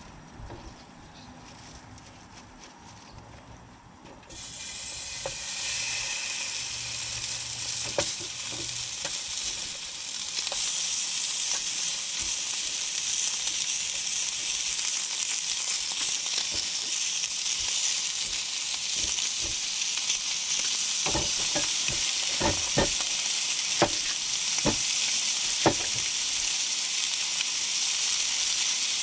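Pork belly slices start frying with a sudden sizzle about four seconds in. The sizzle grows louder about ten seconds in and then holds steady, with several sharp clicks near the end.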